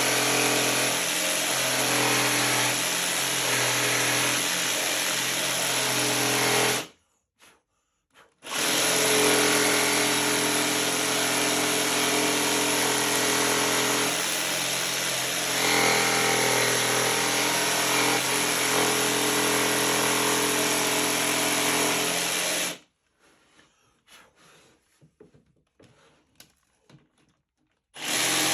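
Electric jigsaw running steadily while cutting wood, switched off about 7 seconds in and started again a moment later, then stopping at about 23 seconds, followed by a few faint ticks and knocks before it starts again right at the end.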